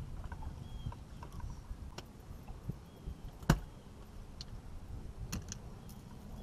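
Water lapping against the boat hull with scattered clicks and knocks of fishing gear being handled on the deck, one sharp knock about three and a half seconds in.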